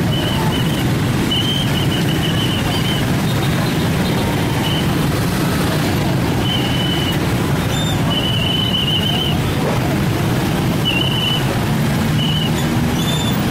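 Steady rumble of road traffic with short, high whistle blasts repeated through it, about eight in all, a few of them trilling.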